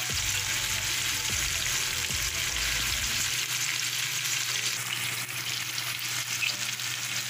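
Chopped garlic, onions, tomatoes and eggplant sautéing in hot oil in a stainless steel frying pan: a steady sizzle.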